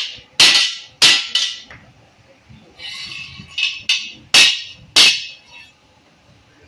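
Hammer striking a welded square steel tube joint: about eight sharp metallic knocks with a short ring, in two irregular clusters with a short lull in between.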